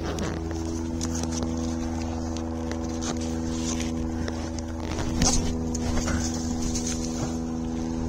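Motorboat engine droning at one steady pitch, with scattered crunches and knocks over it.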